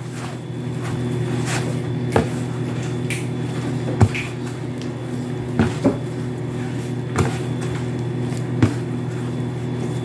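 Siopao dough being kneaded by hand in a plastic basin: dull knocks every one to two seconds as the dough is pushed and pressed against the bowl, over a steady hum.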